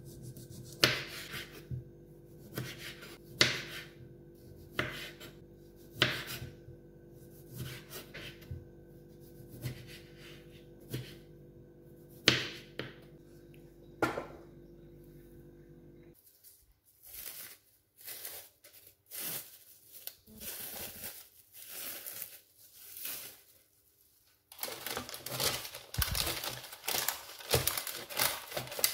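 A kitchen knife cutting plums on a wooden chopping board, a sharp knock on the board every second or so. About halfway through this gives way to the crinkling of parchment paper and plastic wrap, which turns into dense crackling near the end as dough is pressed into the pan.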